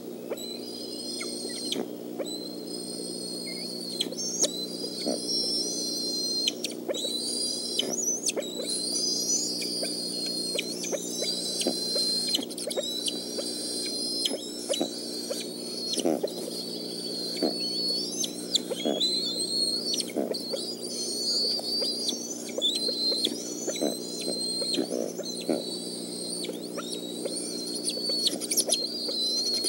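Bald eaglet's high-pitched begging calls: chirping, whistled cries repeated over and over, typical of a hungry nestling demanding food. A steady low hum runs underneath.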